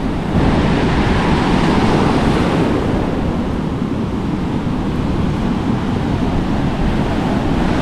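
Ocean surf breaking and washing up onto a sandy beach, a steady rush that grows a little louder about half a second in.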